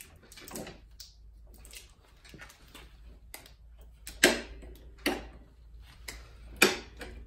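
Plastic and metal clicks and clacks of a Toro push mower's folding handle and its locking levers being worked by hand, with two sharp loud clacks about four and six and a half seconds in, over a low steady hum.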